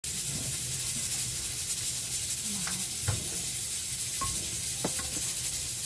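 A steady hiss, with a few light clinks and taps of tableware, two of them ringing briefly, as dishes are handled at the table.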